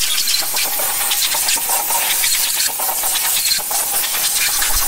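Compressed-air blow gun hissing steadily as it blows out the cylinder bores and passages of a bare LS1 V8 block for its final clean before assembly.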